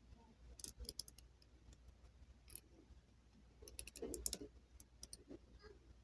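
Near silence with faint, scattered light clicks and taps, in small clusters about half a second in and about four seconds in.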